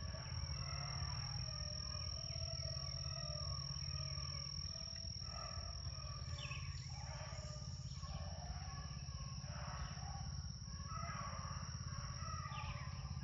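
A pack of rabbit hounds baying in the distance while running a rabbit's trail, their voices coming and going in overlapping bouts.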